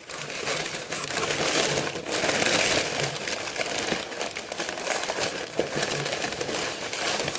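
Packaging crinkling and rustling as items are unpacked from a shipping box.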